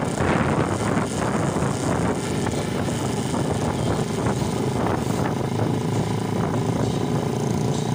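Motorcycle engines running steadily.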